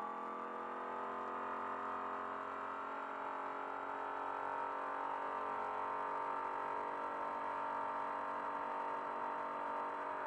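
Trophy truck race engine pulling hard at high revs, a steady high engine note heard from inside the cab as the truck accelerates from about 75 to over 100 mph.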